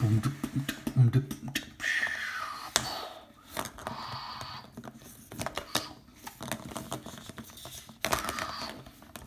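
Irregular light clicks and taps of small objects being handled, with a short voice-like sound in the first second or so.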